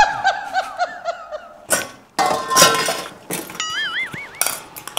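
Comic sound effects: a bouncing tone that fades out at the start, a clattering crash about two seconds in, and a short warbling tone near the end. Sharp metallic clinks of a steel bowl come in between.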